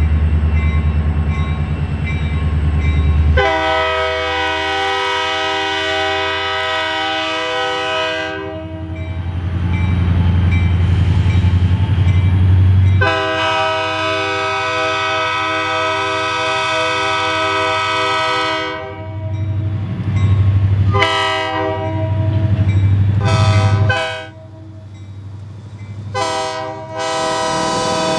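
EMD SD40T-2 'tunnel motor' diesel locomotive working hard under load with a steady low rumble as it passes, while its multi-chime air horn sounds two long blasts, then several short ones, and another long blast near the end.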